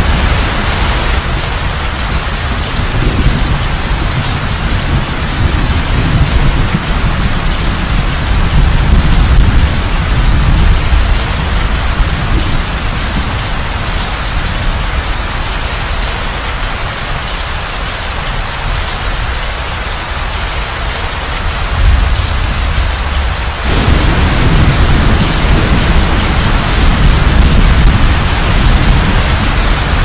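Thunderstorm: steady heavy rain with thunder rumbling low underneath, the rumble easing around the middle and swelling again about two-thirds through.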